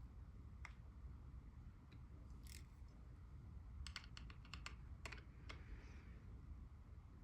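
Faint scattered clicks and light taps of small fan parts and screws being handled, with a quick run of several clicks about four to five seconds in, over a low steady room rumble.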